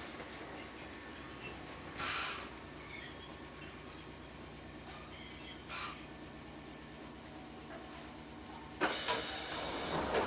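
Kotoden 1080-series electric train car (ex-Keikyu 1000 series) running, heard from inside the car: steady wheel and rail noise, louder for a few seconds in the middle with a thin high squeal over it. A sudden, louder rush of noise comes in near the end.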